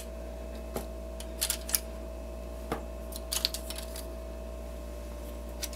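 Plastic Gunpla model-kit runners clicking and clattering lightly against each other as they are laid down on a towel, a scattering of sharp ticks over a steady faint hum.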